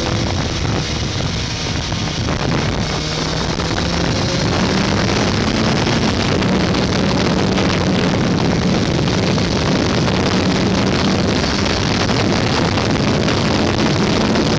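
Kawasaki sport motorcycle engine pulling as the bike accelerates, with heavy wind noise buffeting the onboard microphone. The engine note gets louder and steps up in pitch about four seconds in, then keeps rising slowly.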